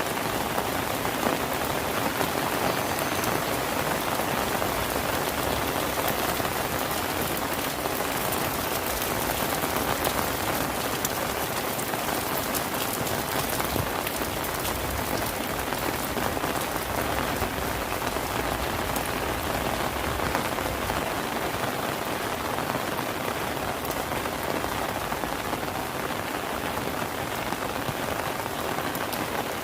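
Steady rain falling on surfaces: an even, dense hiss flecked with many small drop impacts, holding at the same strength throughout.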